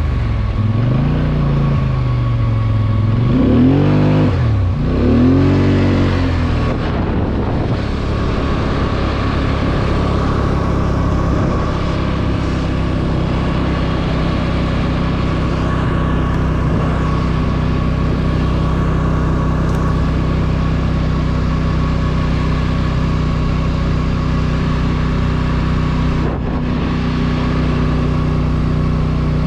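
ATV engine revving up and down twice, its pitch swooping, then settling into a steady drone for the rest of the time.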